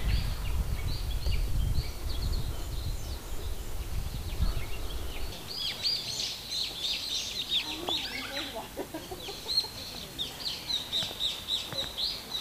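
Several wild birds singing and chirping in woodland: many short, quick, high chirps that grow busier about halfway through. A low rumble sits under the first few seconds.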